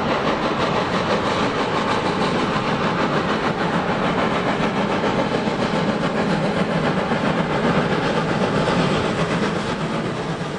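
Württemberg Hz rack tank steam locomotive 97 501 working as it hauls a passenger train past, with the chuffing of its exhaust and the clatter of carriage wheels over the rail joints.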